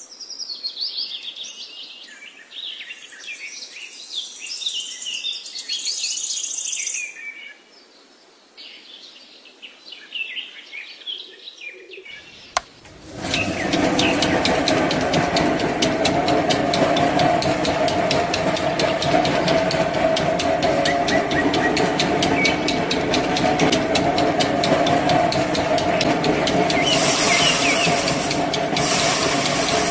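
Birds chirping for about the first twelve seconds. Then a click, and a small motor starts driving the spinning drum of a miniature model thresher through a rubber-band belt, running steadily with a fast rattle. It turns scratchier near the end as rice stalks are fed into the drum.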